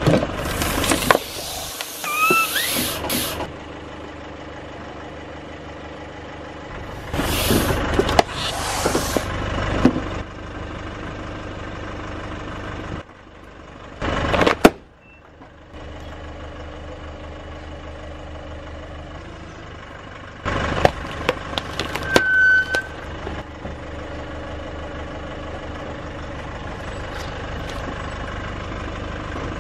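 A car tyre rolling over and crushing objects, plastic detergent bottles among them, in four separate bursts of crunching and crackling over the car's steady idling engine. About halfway through, a sealed foil pouch bursts under the tyre with a single sharp pop, the loudest sound here.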